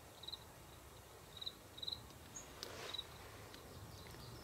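An insect chirping faintly in short, high trills, four of them spaced about a second apart. There is a brief rustle about three seconds in.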